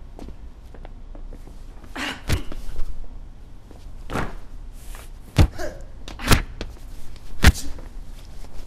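Fight sound effects: about six sharp punch and kick impacts, one to two seconds apart, over a low steady room tone, the loudest hits in the second half.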